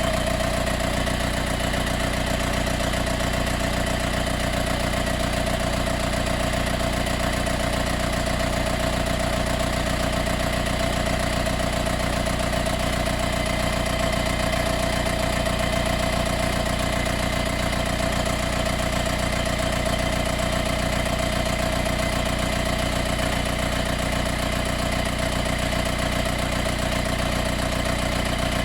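Mercedes B180 CDI's four-cylinder diesel engine running steadily after a warm restart, with a continuous rattle from the engine bay that sounds like an extra engine or fan switching on. The rattle appears only on warm starts and goes away once the car has been driven for a minute or two.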